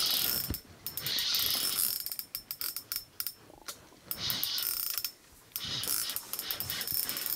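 Spinning reel on an ice-fishing rod fighting a fish, its drag clicking and buzzing in bursts as line slips out: the drag is set a little loose.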